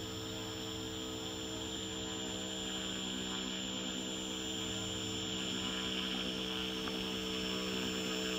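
Electric thruster motors of a small solar-powered robot catamaran running under way: a steady hum with a higher whine above it, growing slightly louder as the boat approaches.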